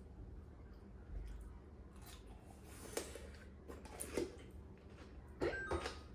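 Glass jars, bottles and containers knocking and clinking as they are handled and set down on fridge shelves, a few scattered knocks, with a couple of short high tones near the end.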